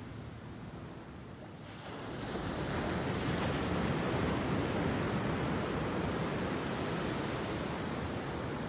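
Ocean surf on a beach: a steady wash of breaking waves that swells up about two seconds in and stays strong.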